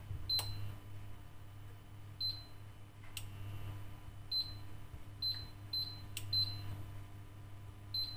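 Induction hob's touch controls beeping as they are pressed to set the heat: about eight short, high beeps, unevenly spaced, with a few light clicks.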